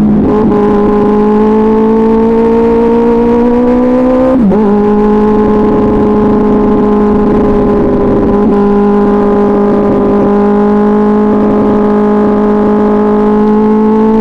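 2024 Kawasaki Ninja ZX-6R's 636 cc inline-four running through an SC-Project exhaust at a steady engine speed. The pitch climbs slowly, drops sharply at a gear change about four seconds in, then holds fairly even with a brief dip about halfway through.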